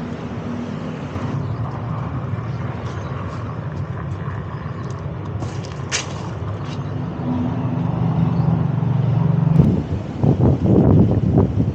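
Road traffic: a motor vehicle engine running steadily nearby, growing louder toward the end, with a single sharp click about six seconds in. In the last two seconds wind buffets the microphone.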